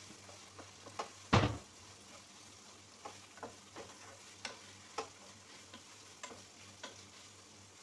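A wooden spatula stirring chicken and carrots in a pot, knocking and scraping against the pot at irregular moments, loudest about a second and a half in, over a faint sizzle of frying.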